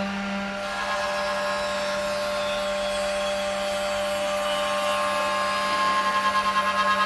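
CNC door lock drilling machine running, its motors giving a steady hum and whine with several held tones. Near the end a rapid pulsing comes in, about five beats a second.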